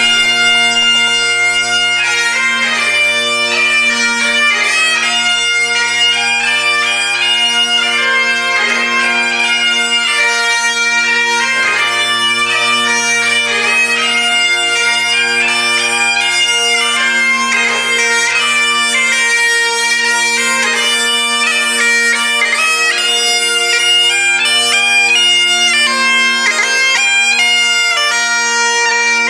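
Bagpipes playing a tune over steady drones, starting suddenly at full volume.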